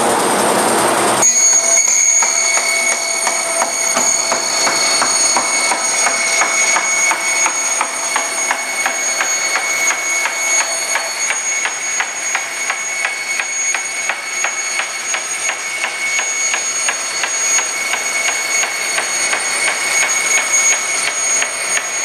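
Forrest horizontal bandsaw cutting through a bathtub insert's front skirt and foam feet, its table feeding the work at 2 inches per second. A rush of noise in the first second gives way to a steady high whine with rapid, even ticking.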